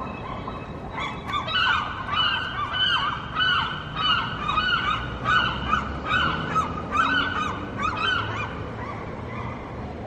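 Gulls calling: a long run of repeated, arching cries, about two a second, starting about a second in and stopping shortly before the end, over a steady low background rumble.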